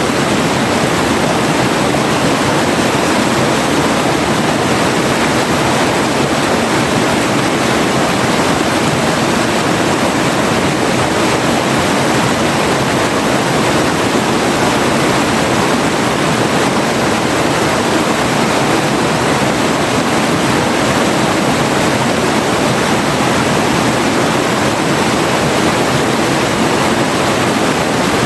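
River water flowing: a steady, even water sound that does not change.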